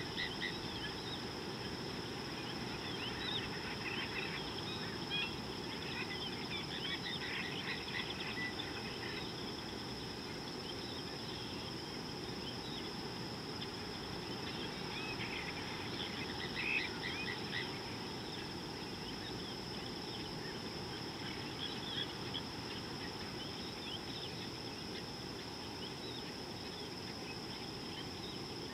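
Riverside ambience: a steady high insect drone over a low even background rumble, with scattered bird chirps that bunch up twice, a few seconds in and again about halfway.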